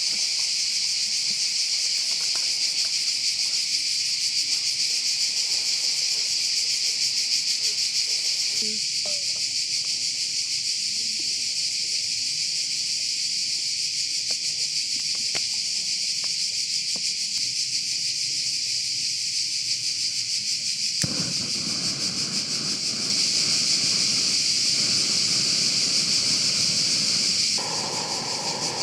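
Dense insect chorus: a steady, high-pitched buzzing with a fast pulse. About two-thirds of the way in, a low rushing noise joins it and grows louder before easing near the end.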